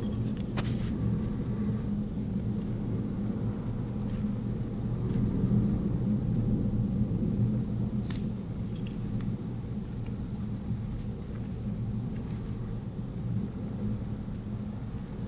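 Steady low hum, with a few short metallic clicks from the tools of a Swiss Army knife being handled, about a second in and again around the middle.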